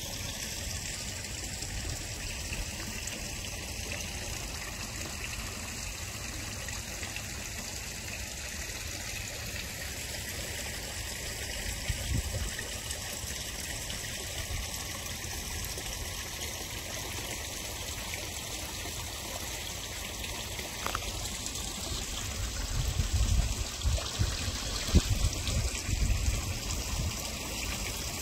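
Water trickling steadily in a garden koi pond, with a few low rumbling bumps near the end.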